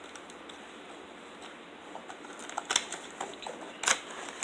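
A cardboard product box being opened and its packaging handled: faint rustling, then from about halfway a scatter of short clicks and rustles, the loudest near the end.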